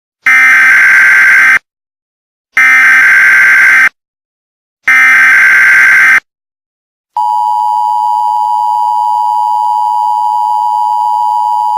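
Emergency Alert System tones: three loud bursts of SAME digital data tones, each about a second and a quarter long and a second apart. About seven seconds in, the steady two-tone EAS attention signal starts and holds.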